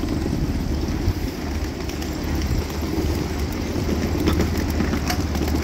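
A 7.5-inch gauge miniature ride-on train running along its track, heard from the passenger cars as a steady low rumble, with a few light clicks near the end.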